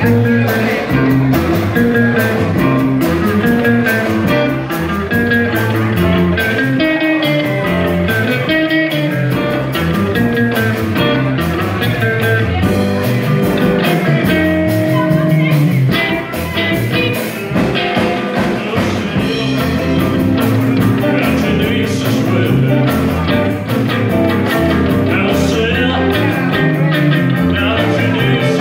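Live rock and roll band playing: electric hollow-body guitar, acoustic guitar and a drum kit, with a man singing lead.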